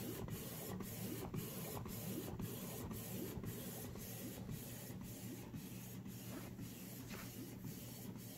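Canon Pixma TS9120 inkjet printer printing a photo: a quiet, steady whir of its print mechanism with faint light ticks.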